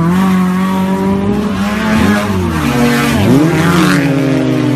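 Off-road truck engine revving hard at high revs, its pitch dipping and climbing back twice as the throttle comes off and goes back on.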